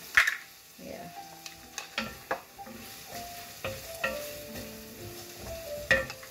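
Wooden spoon stirring a cream sauce with asparagus as it cooks in a stainless steel pan, with a few sharp knocks of the spoon against the pan, the loudest just as it begins.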